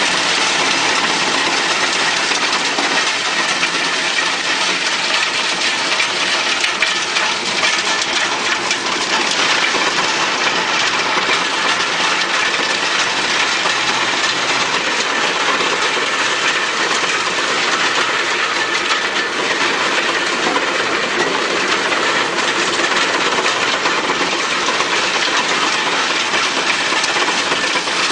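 Drum-type wood chipper running, a loud steady mechanical noise with a constant dense clatter.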